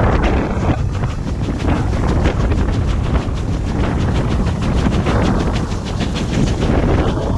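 GWR Manor class 4-6-0 steam locomotive 7828 Odney Manor running along the line, heard from its tender, with a rapid regular beat under heavy wind buffeting on the microphone.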